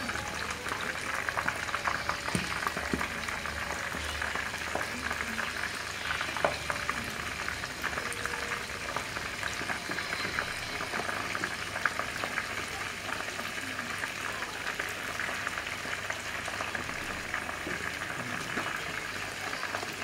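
Flour-battered squid pieces deep-frying in hot cooking oil: a steady, dense crackle and sizzle, with a couple of sharper pops partway through.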